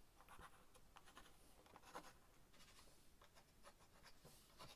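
Faint pencil scratching on pine wood in a few short strokes, marking around the handle on the block, with slightly louder strokes about two seconds in and near the end.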